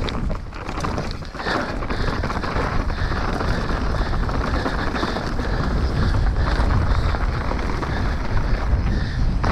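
Wind buffeting the microphone over the rumble and rattle of an enduro mountain bike descending a rough trail at speed, easing briefly about a second in.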